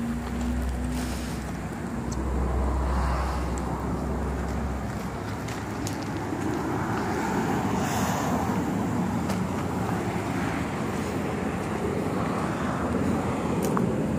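Road traffic passing, swelling and fading, with wind rumbling on the microphone during the first few seconds.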